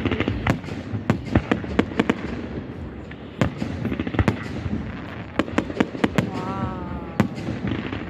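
Fireworks display: aerial shells bursting in an irregular string of sharp bangs, several a second at times, over a constant crackling rumble of the show.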